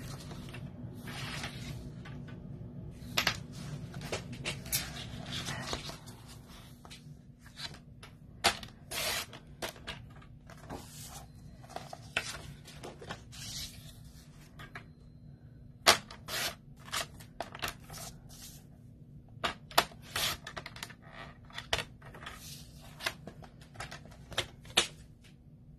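Cardstock being handled and cut on a paper trimmer: irregular sharp clicks and taps from the paper and the trimmer's rail and blade, with a few short scrapes, several much louder than the rest.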